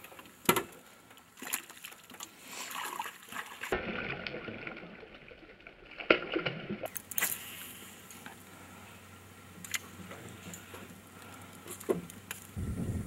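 Water splashing and lapping around a small fishing boat, with scattered sharp knocks and clicks from the boat and fishing tackle.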